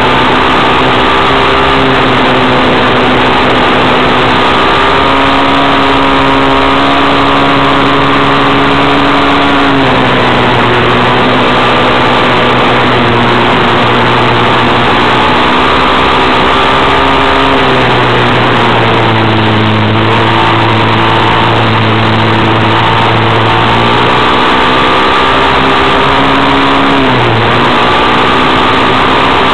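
Vehicle engine running at speed, its note shifting down and up in steps a few times, under loud rushing noise of wind and tyres on a gravel road.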